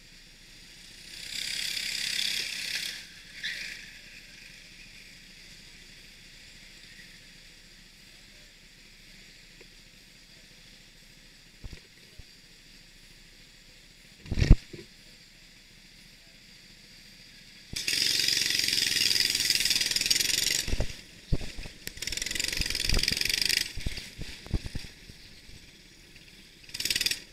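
A racing kart's engine, heard from the kart itself. It makes a short burst of noise near the start, then stays fairly quiet while the kart stands still, with one sharp knock about halfway. From about two-thirds of the way in it runs loud with brief dips as the kart pulls out and drives onto the track.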